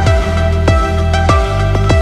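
Electronic background music with a steady beat: a deep kick drum, falling in pitch, hits about twice a second under sustained synth tones.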